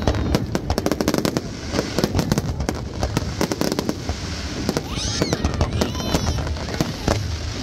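Fireworks display: aerial shells bursting and crackling in rapid succession, many sharp bangs a second.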